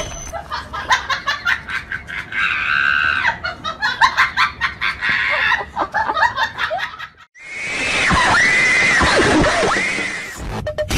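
A person laughing hard in a rapid run of short bursts, with a high squeal about two seconds in, then a long, loud scream whose pitch wavers up and down.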